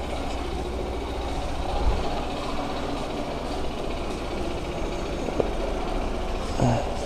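Petrol scooter engine idling steadily just after starting, left running for a moment to warm up.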